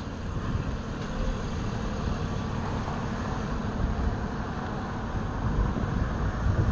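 Onewheel XR's single tyre rolling over textured concrete pavement: a steady low rumble of road noise.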